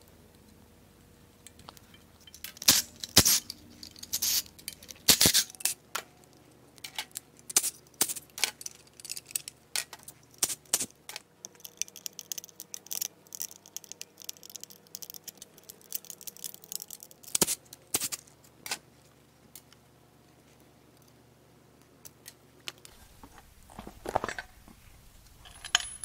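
Hands working hoses, clamps and metal fittings loose on a Mazda 2.3L MZR engine's intake manifold: irregular sharp clicks, clinks and light rattles. A few louder clatters come in the first third and one about two-thirds through, with quieter stretches between.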